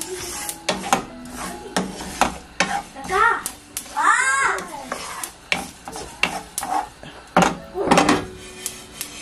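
Sesame seeds being stirred in a pan as they toast, a spatula scraping and clicking against the pan many times in quick, uneven strokes.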